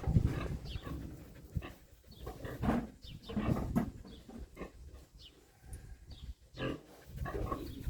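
Pig grunting in short, irregular bursts.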